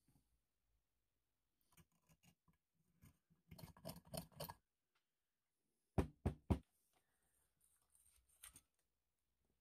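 Hobby knife scraping and picking at the threaded rim of a brass carbide lamp chamber: a run of small scratchy clicks, then three sharp taps in quick succession about six seconds in, and a few faint clicks near the end.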